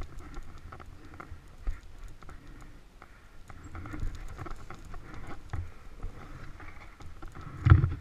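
Dirt bike rolling down a steep wooded single track at low revs, with tyres crackling and patting over dry leaves and dirt. A loud thump near the end as the bike hits a bump.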